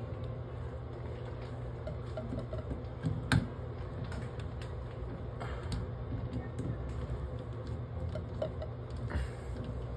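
Scattered light clicks and taps of a socket driver turning in a bathtub faucet stem, the loudest knock about three seconds in, over a steady low hum.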